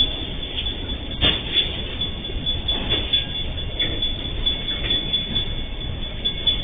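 Empty MRS Logística freight train's container wagons rolling past in a steady rumble, with a few sharp knocks from the wheels on the track.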